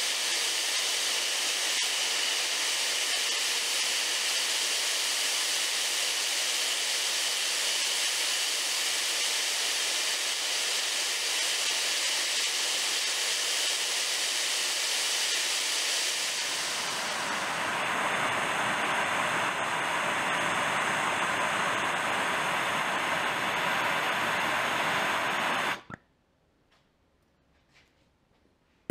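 Handheld gas torch flame hissing steadily as it heats a split lock washer red hot to anneal it. The hiss changes tone about two-thirds of the way through, then cuts off suddenly near the end when the torch is shut off, leaving a few faint clicks.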